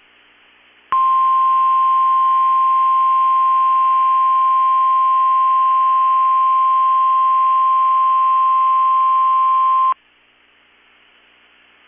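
NOAA Weather Radio 1050 Hz Warning Alarm Tone: one steady, unbroken high tone that starts about a second in, lasts about nine seconds and cuts off abruptly, leaving faint radio hiss. It is the alarm that switches on specially built weather radios, sent here as part of the required weekly test.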